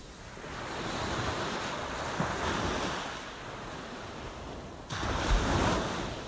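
Ocean waves washing in: one long swell of surf building about half a second in and easing off after about three seconds, then a second, sharper wave breaking about five seconds in.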